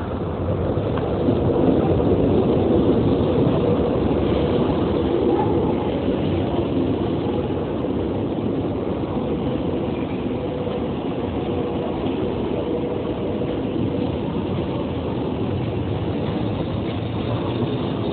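Train running on the rails, a steady rumble that grows louder about two seconds in and settles back a little after about five seconds.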